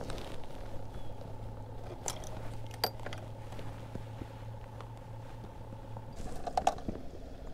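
Light scattered clicks and knocks of fishing gear being handled in a plastic kayak, with a cluster of sharper clicks near the end. Under them runs a low steady hum that stops about six seconds in.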